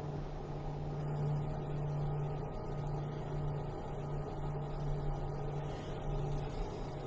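A steady low machine hum that swells and eases every second or so.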